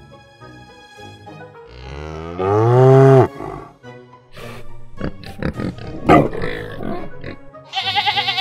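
Farm-animal calls over light background music: a loud, long cow moo about two seconds in, a few shorter grunts a little later, and a wavering sheep bleat near the end.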